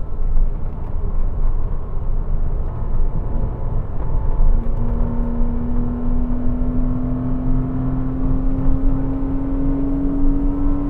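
Porsche Cayman 987's 2.7-litre flat-six running hard on track, over heavy road and wind rumble. From about four seconds in, a clear engine tone climbs slowly and steadily as the car pulls through a long gear.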